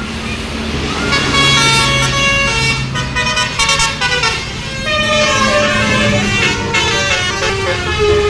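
Bus 'telolet' horn: a multi-tone horn playing a quick run of changing notes, starting about a second in, over the bus engine running.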